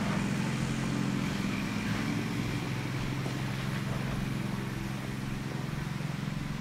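An engine running steadily, a low, even hum that holds one pitch.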